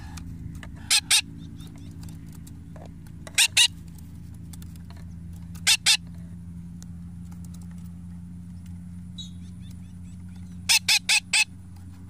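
Parakeet giving short, sharp double chirps while being hand-fed: pairs about every two or three seconds, then a quick run of four near the end, over a steady low hum.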